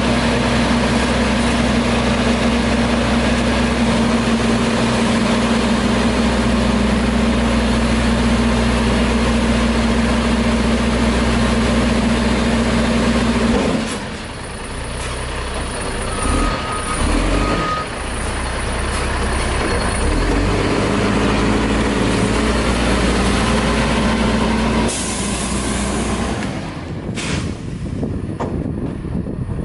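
WhiteGMC garbage truck with a Heil front-loader body, its diesel engine running fast with a steady whine, then dropping to a lower run. Two short beeps follow, and near the end a loud air hiss like an air-brake release.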